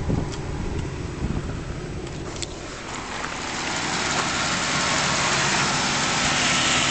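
1994 Buick Roadmaster's LT1 V8 idling with the air conditioning running. A few low knocks come early, and from about three seconds in a steady rushing noise of the engine and its accessories grows louder.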